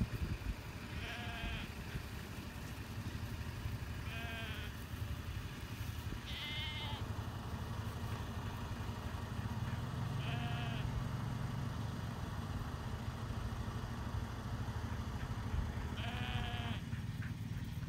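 Sheep bleating: five separate quavering bleats, each under a second long, spaced a few seconds apart, over a steady low rumble.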